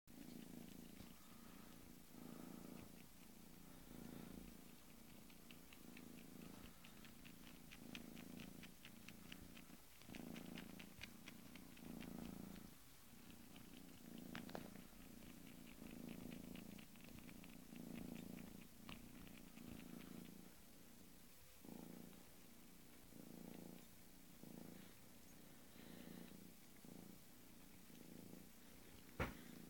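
Bengal kitten purring softly, the purr swelling and fading with each breath about once a second. A stretch of faint rapid clicking runs through the middle.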